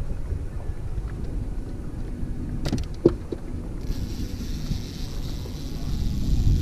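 Wind rumbling on the microphone on an open fishing boat. There are two or three sharp clicks about three seconds in, and a higher hiss joins about four seconds in.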